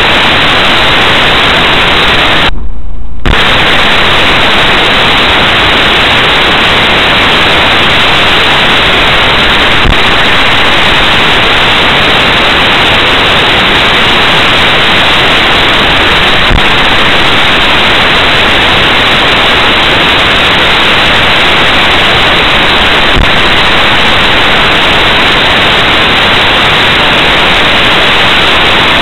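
Loud, steady hiss of static from a cheap dashcam's audio track, with a brief dropout about three seconds in and faint ticks every six or seven seconds.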